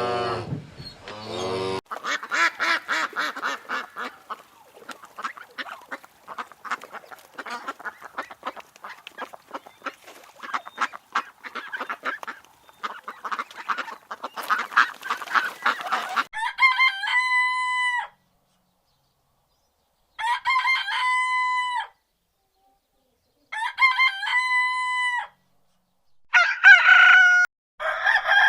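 A cow's moo trails off in the first two seconds. Then a flock of chickens clucks and cackles busily for about fourteen seconds, followed by a rooster crowing about five times, each crow a held call of a second or two that drops at the end, with pauses between.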